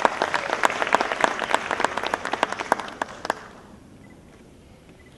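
Audience applauding, a patter of many hand claps that dies away about three and a half seconds in, leaving quiet room tone.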